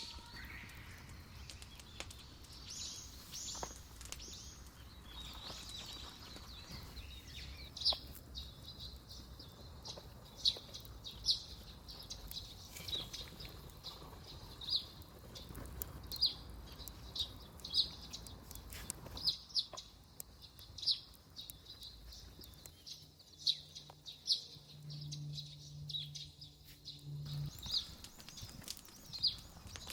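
A bird calling over and over with short, high chirps, roughly one a second, against a steady low outdoor background.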